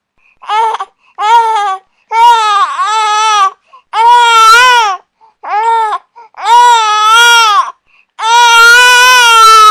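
Infant crying: seven wails broken by short pauses for breath, two brief cries first, then longer wails of one to one and a half seconds, the last one held through the end.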